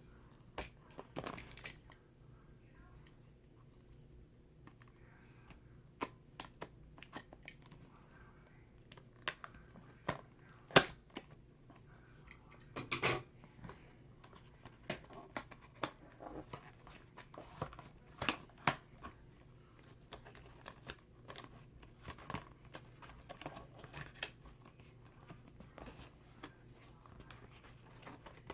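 Product packaging being opened and handled by hand: scattered clicks, crinkles and tearing, with one sharp click about eleven seconds in.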